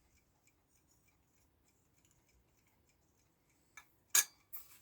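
Faint, steady ticking of a mechanical alarm clock movement, then a few sharp metallic clicks near the end as small clock parts are handled and fitted.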